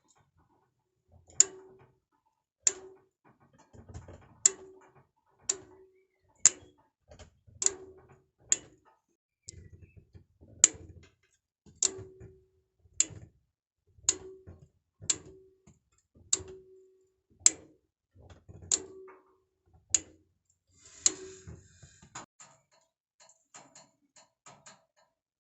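A sharp click about once a second, repeated through most of the stretch, each followed by a short low hum; fainter, irregular clicks follow near the end.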